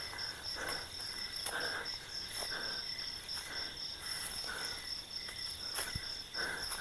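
A steady, pulsing high chirring of night insects, with soft rustling steps through dry leaf litter about once a second and a single sharp click near the end.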